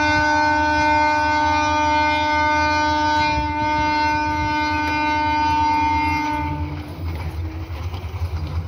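Train locomotive horn sounding one long, steady blast that cuts off about seven seconds in. Under it, and after it, is the low rumble of the train running away down the track.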